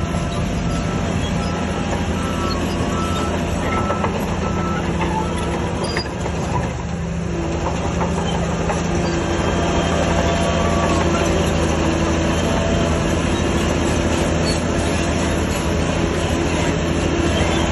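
Heavy earthmoving machinery working: a diesel engine runs steadily under load with grinding and clanking, and a reversing alarm beeps repeatedly for about the first four seconds.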